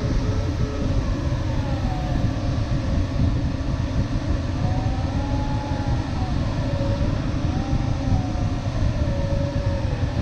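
Steady airflow rushing over an LS7-WL glider's canopy, heard inside the cockpit, with a faint tone that slowly rises and falls in pitch.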